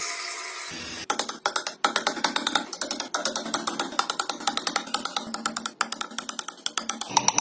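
Background music with a fast, clicking percussive beat that starts about a second in, after a brief steady hiss.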